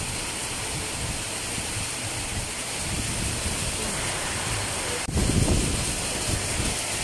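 Heavy rain pouring down in a steady hiss. A little past five seconds in it cuts out for an instant, then comes back with a louder low rumble lasting about a second.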